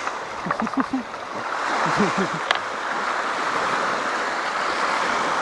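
Small waves lapping on a lake shore: a steady rush of water, with a few short low sounds in the first couple of seconds and a sharp tick about two and a half seconds in.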